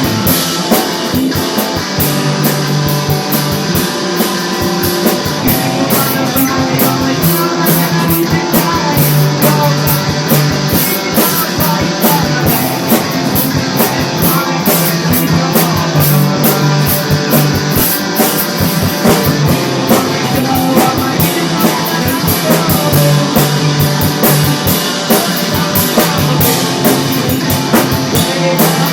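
Rock music: guitar and drum kit playing a fast, steady beat over a bass line that moves between a few notes.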